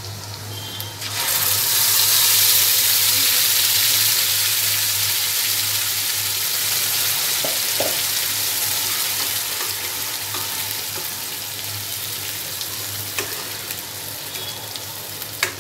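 Ground green masala paste hitting hot oil in a kadai and sizzling loudly: the sizzle swells about a second in and slowly dies down as the wet paste fries. A spatula stirs the paste near the end.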